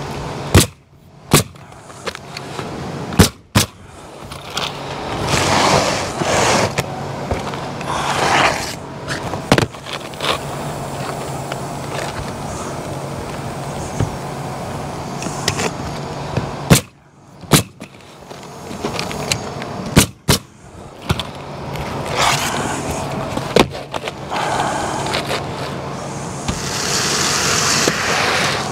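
Pneumatic coil roofing nailer (Bostitch) firing nails through asphalt shingles, sharp shots mostly in quick pairs with long gaps. In between, shingles scrape as they are slid into place on the roof.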